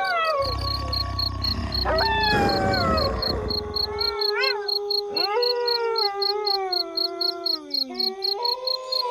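A pack of wolves howling in chorus: several long, overlapping howls at different pitches, some sliding down, with a short rising-and-falling cry about four and a half seconds in. A rapid high-pitched pulsing chirp runs underneath.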